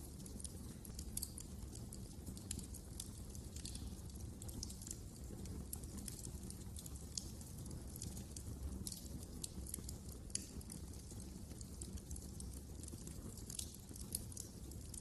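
Wood fire crackling in a fireplace: frequent sharp, irregular pops and snaps over a low, steady rumble of the burning fire.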